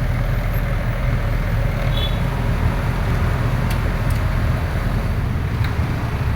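Excavator's diesel engine running steadily, with a couple of faint clicks in the second half.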